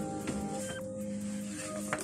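Background music of slow, held notes, with a short click just before the end.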